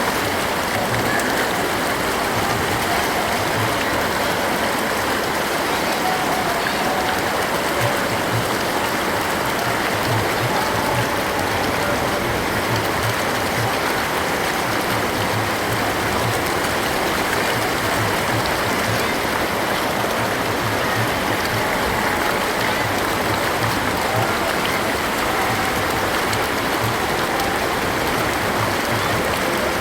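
The Ganges river flowing: a steady, unbroken rush of moving water.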